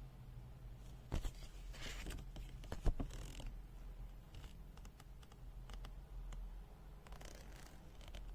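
Paper user manual being handled and its pages turned: soft rustling and scraping with two sharp clicks, about one and three seconds in, over a low steady hum.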